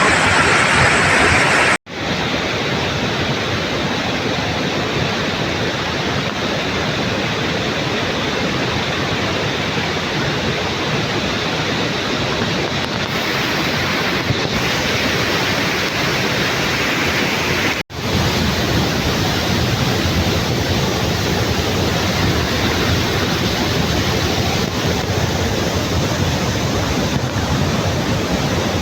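Loud, steady rush of a waterfall and stream in flash flood, with muddy floodwater pouring over the rocks. The sound breaks off abruptly and resumes twice, about two seconds in and again about eighteen seconds in.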